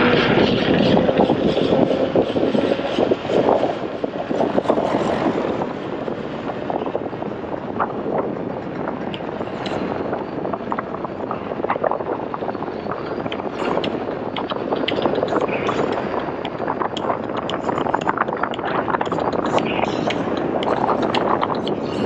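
Wind rush and road noise from riding a motorcycle at speed, with constant crackling wind buffeting on the microphone. It is a little louder for the first few seconds, then settles.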